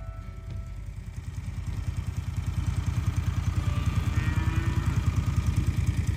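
An engine running with a fast, even pulse, getting louder over the first two or three seconds and then holding steady.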